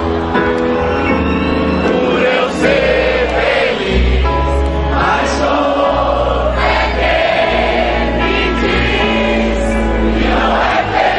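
Live rock band playing a song, with many voices singing together over a steady bass, typical of a concert crowd singing along.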